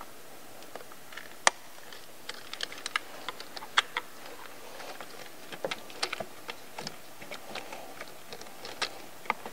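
Irregular small plastic clicks and taps as hands unlatch fuel injector electrical connectors and wiring-harness clips and move the harness aside. Two sharper clicks stand out, about one and a half seconds and nearly four seconds in.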